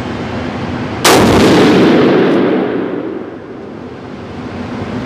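A single shot from a 300 PRC rifle about a second in, followed by a long reverberation that fades over about two seconds in the enclosed indoor range.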